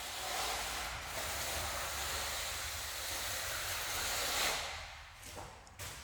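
Steel plastering trowel scraping across wet floor mortar, a steady hissing scrape that dies away about four and a half seconds in.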